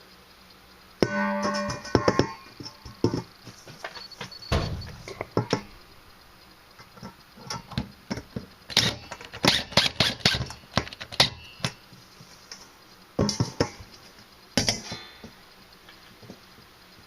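Stainless steel salad bowl clanking against the drywall, with a short metallic ring about a second in, then scattered clicks and knocks as it is worked into place with screws, with a quick run of clicks in the middle.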